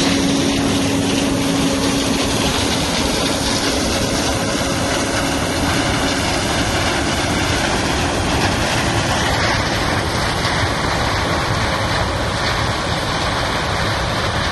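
Heavy diesel farm machinery running steadily under harvest load, a dense mechanical rush with a steady hum through the first several seconds.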